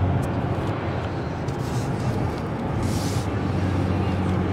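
Car interior road noise while driving: a steady low engine hum with tyre and wind noise, and a brief hiss about three seconds in.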